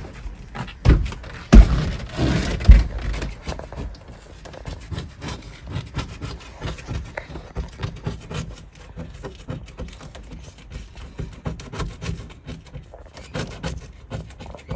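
Scraping and rubbing, with three sharp knocks in the first three seconds, then a steady run of small scrapes and clicks.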